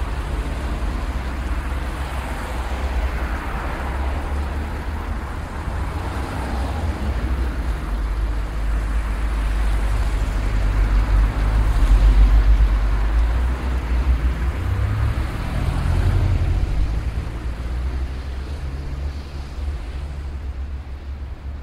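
City street traffic: cars passing in a continuous low rumble, swelling to its loudest about halfway through, with one engine's hum standing out briefly after that.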